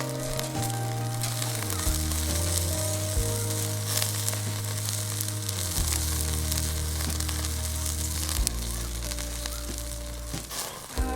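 Steady sizzling with sharp crackles from a wood fire in a Snow Peak Takibi SR fire pit, under background music with long held bass notes.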